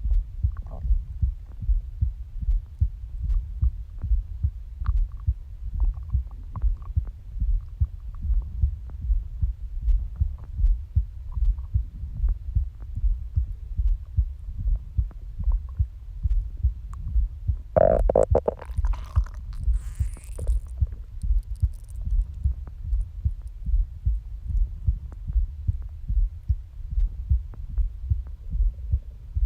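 A person's heartbeat, a steady run of low thumps, with faint short stomach gurgles here and there. About 18 seconds in, one louder stomach growl lasts about a second.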